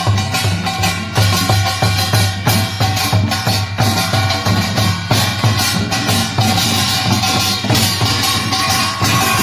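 Korean pungmul percussion ensemble playing: dense, rapid strikes of metal gongs over steady drum beats, with ringing metallic tones.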